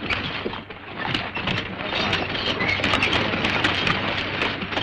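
Stagecoach pulled by a team of horses: a dense patter of hoofbeats over the steady noisy rumble of the coach's wheels, a little louder from about a second in.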